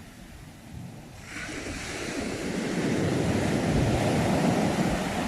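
Ocean wave breaking on the shore: a quiet lull, then a wash of surf that comes in suddenly just over a second in, swells to a loud rush and begins to ease near the end. Some wind noise on the microphone.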